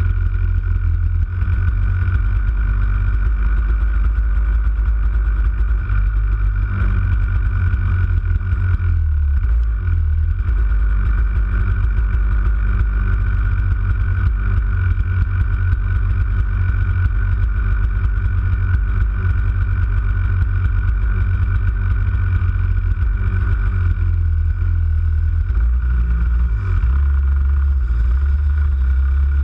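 Racing kart engines idling with a loud, fast low throb, close to the onboard camera. In the last few seconds the note shifts as the kart pulls away.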